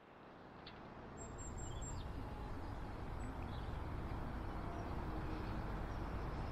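Outdoor ambience fading in over the first second or so: a steady low noise, with a few faint, short, high bird chirps between about one and two seconds in.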